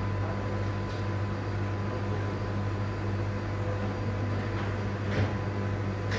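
Steady low mechanical hum of kitchen machinery, with a few faint light taps, a metal spoon touching the plate as sauce is drizzled.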